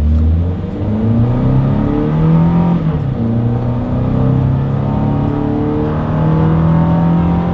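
Toyota Tacoma's 2.7-litre naturally aspirated inline-four under hard acceleration, heard from inside the cab. The engine note rises, drops as the six-speed automatic upshifts about three seconds in, then climbs again more slowly, sounding plainly like a four-cylinder.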